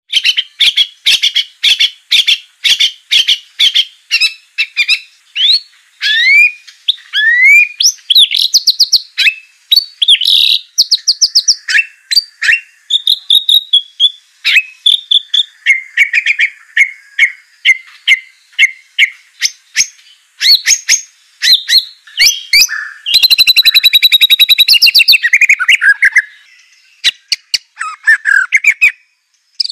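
White-rumped shama of the long-tailed Aceh form singing a long, varied song. Quick strings of sharp repeated notes alternate with upward-sweeping whistles, and a dense rattling trill comes about three-quarters of the way through.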